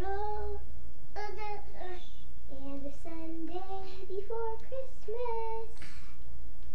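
A young girl singing a tune, a run of held notes stepping up and down in pitch, over a steady low hum.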